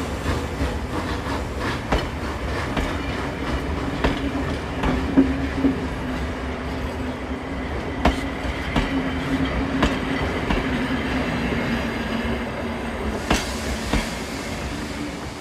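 Train rolling on rails: a steady rumble with a low droning tone and scattered sharp clicks of the wheels over rail joints. It fades out near the end.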